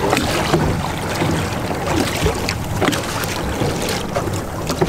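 Sea water washing and slapping against a boat's hull right at the microphone: a steady wash broken by irregular small splashes, over a faint steady low hum.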